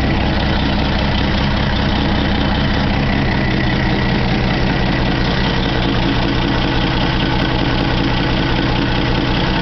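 1956 Willys pickup's inline six-cylinder engine idling steadily.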